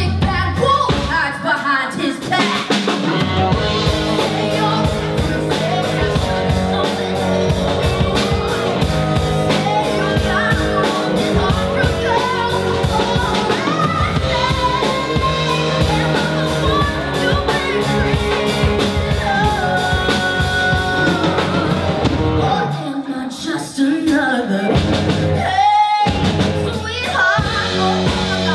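A woman singing a rock-style musical theatre song with a live band of drums, bass, guitars, piano and keyboard. About 22 seconds in, the drums and bass drop out for a couple of seconds, then the band comes back in.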